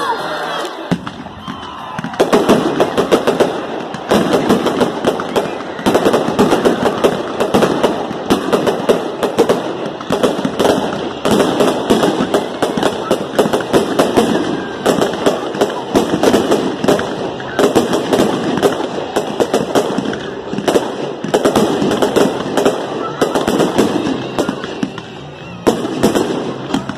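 Fireworks display going off: rapid volleys of bursting shells and crackle, many sharp reports a second, starting about two seconds in.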